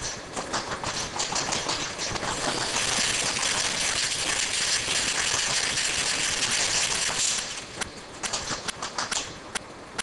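Dual-lane liquid filler with feed screws running: small bottles clattering and ticking along the conveyor, with a loud steady hiss from about two and a half seconds in until near the end.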